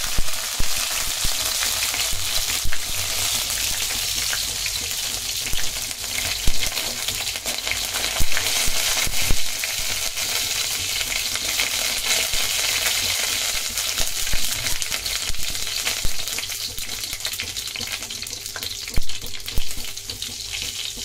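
Hot oil sizzling loudly in a kadai as curry leaves, dried red chillies and cumin seeds fry for a tempering, with occasional clicks of a spatula against the pan. The sizzle eases a little near the end.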